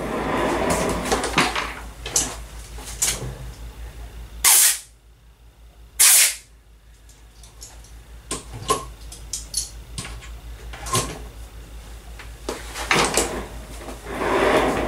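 Off-camera handling noises: scattered knocks and clicks, with two short, very loud blasts about a second and a half apart near the middle.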